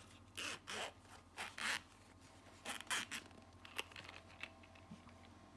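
The zipper of a small round fabric earbud carrying case being pulled open in several short runs, most of them in the first three seconds, followed by a few faint ticks.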